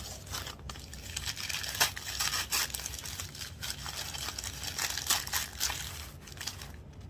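Packaging crinkling and rustling in a run of quick, irregular crackles as it is handled, stopping shortly before the end.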